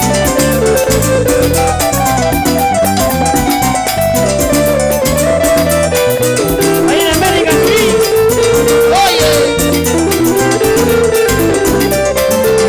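Live Latin dance band playing an instrumental passage: a sustained melody over a steady, rhythmic bass and percussion beat.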